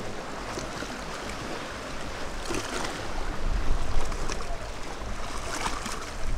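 Sea waves washing and splashing against a sea wall, an even rushing wash with a low rumble that swells loudest about three and a half to four seconds in.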